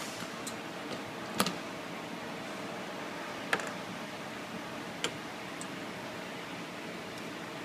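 Three sharp clicks, unevenly spaced, over a steady hum.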